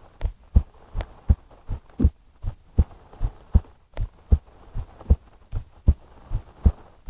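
A woman's heartbeat heard close up, a steady lub-dub of paired low thumps at a little over one beat a second.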